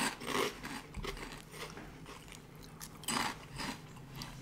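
Crunchy bites and chewing of Nongshim shrimp-flavoured crackers, puffed stick snacks: a few crisp crunches, loudest near the start and again about three seconds in.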